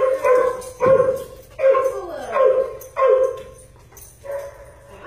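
A dog barking over and over, about one bark every three-quarters of a second, with a quieter bark about four seconds in.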